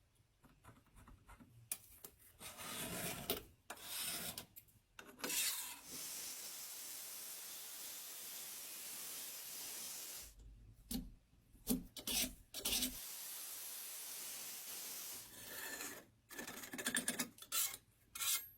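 Hand scraping and rubbing strokes on the rusty parts of an old roller cookie machine during restoration, with two long stretches of steady hiss in between.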